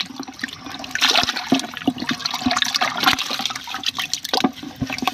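Water splashing and sloshing in a plastic bucket as a hand churns through it grabbing at live fish, which thrash in the water. The splashing turns loud and busy about a second in.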